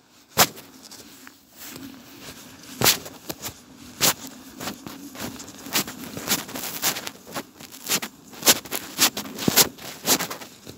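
Irregular sharp clicks and crackles right at the microphone of a handheld camera carried on a walk in light rain, with a faint low hum in the background for a few seconds in the middle.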